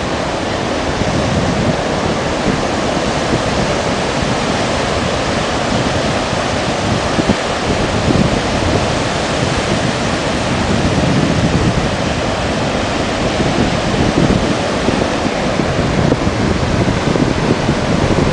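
Steady loud rush of sea surf mixed with wind buffeting the microphone.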